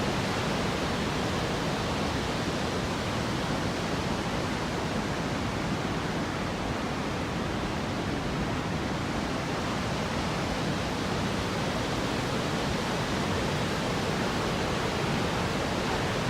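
The Rhine Falls thundering: a large waterfall's steady, even roar of falling water.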